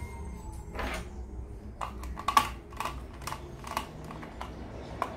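Small screwdriver working the screws out of a clamp meter's plastic back cover: a string of light, uneven clicks and taps, about one or two a second.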